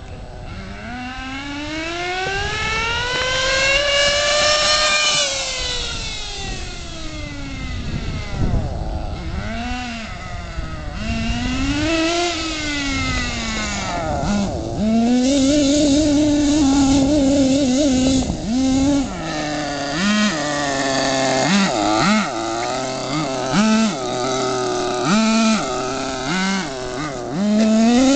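Redcat Racing Twister LT 1:8-scale RC car's small two-stroke engine running at high revs, its high buzzing pitch sweeping up and down as the car speeds along and turns. In the second half it settles to a steady high whine, then drops lower with a series of short revs about a second apart.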